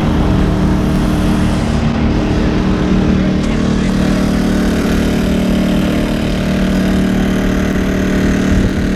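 An engine running steadily at a constant speed, with an even hum that neither rises nor falls.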